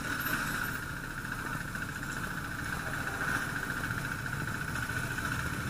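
Motorcycle engines idling steadily, with a steady high-pitched hum over the low engine sound.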